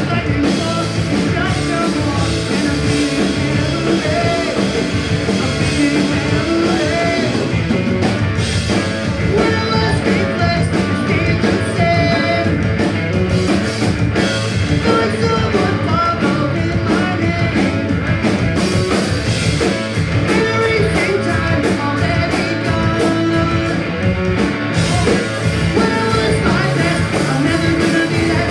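Punk rock band playing live, with electric guitars, bass and drums and a singer's vocals over them.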